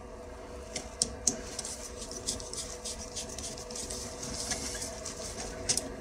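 Scattered small metallic clicks and scrapes of a screwdriver working a hose clip on a diesel heater's fuel pump line, over a faint steady hum.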